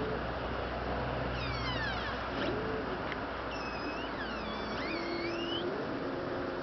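eZee electric bike hub motor making high-pitched chirping squeals that sweep up and down in pitch, rising and falling with wheel speed, over a lower motor whine that steps up in pitch near the end. The hub did not make this noise when new; the cause is unknown to the owner.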